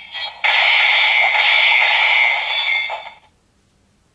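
DX Mirai Driver toy belt's speaker playing Kamen Rider Shinobi's finishing-move sound effect: a long, loud, hissing electronic noise that fades out a little past three seconds in.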